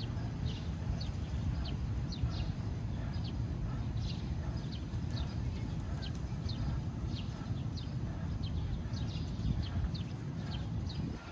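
Steady low outdoor rumble with a run of short, high, falling chirps, roughly two or three a second, throughout.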